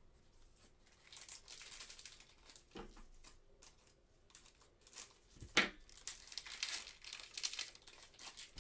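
Foil trading-card pack wrapper crinkling as it is handled and torn open, with one sharper rip a little past the middle.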